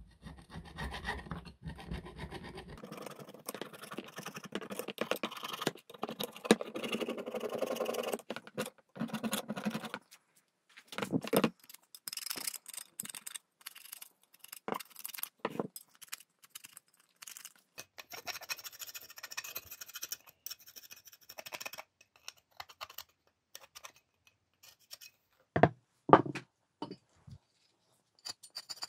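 Screwdriver blade scraping caked dirt off the metal end housings of an old Dacia alternator. The scraping runs on steadily for about the first ten seconds, then comes in separate short scrapes, with a few louder strokes near the end.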